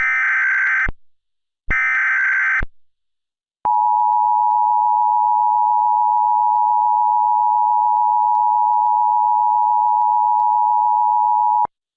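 Emergency Alert System SAME header: two short bursts of buzzing digital data, about a second each, signalling the start of an alert. Then comes the two-tone EAS attention signal (853 and 960 Hz played together), held steady for about eight seconds before it cuts off.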